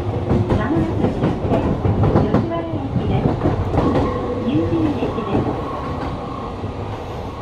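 Electric train running over jointed track and pointwork, with a quick run of wheel clicks across rail joints and turnouts in the first couple of seconds, then a steadier rolling rumble.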